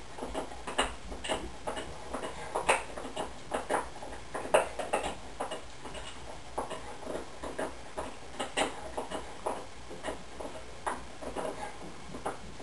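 Sleeping newborn golden retriever puppies making small, short squeaks and snuffles, irregularly, two or three a second, over a low steady hum.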